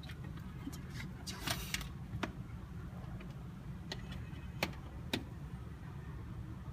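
Faint clicks and a brief rustle of the plastic camping light being handled, over a steady low hum. The clicks are scattered, about six of them.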